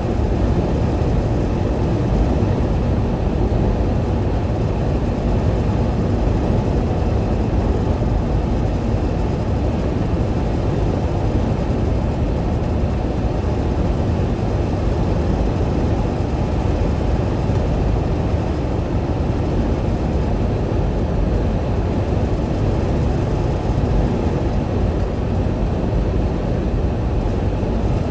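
Steady, even low rumble of a semi-truck, with no change in pitch or level.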